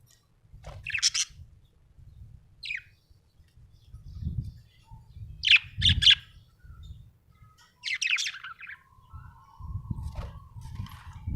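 Budgerigar chirping in short bursts of quick, high chirps, several times, with low thuds and rumbles between them.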